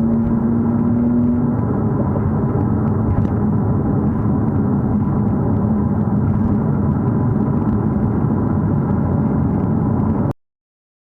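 Mercedes-AMG CLA 45 S turbocharged four-cylinder car running, a steady hum with a faint low tone that fades out about a second and a half in. It cuts off abruptly near the end.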